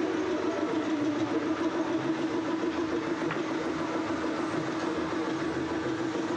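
An electric woodworking machine running steadily: a constant hum over an even hissing noise.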